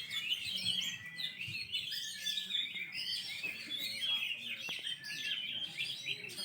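Several oriental magpie-robins (kacer) singing at once in a contest: a dense, unbroken run of overlapping whistles, trills and chatter.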